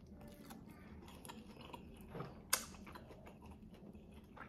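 A person chewing fried chicken close to the microphone: soft, wet mouth clicks, with one sharp click about halfway through.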